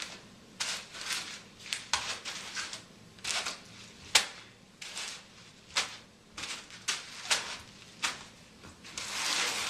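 Plastic packaging, the bags of airsoft BBs among it, crinkling and rustling as it is handled: a string of short, irregular crackles, with a denser rustle near the end.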